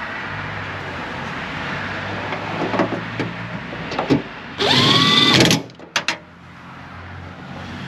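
Cordless power driver running for about a second, its motor whine rising in pitch and then holding, as it spins a retaining nut onto the liftgate's camera stud. Light handling clatter comes before it and two short clicks after.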